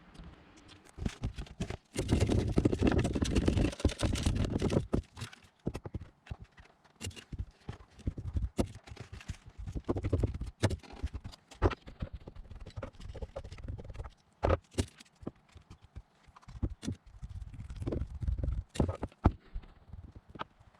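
Irregular knocks and taps, with a louder stretch of rough noise a couple of seconds in.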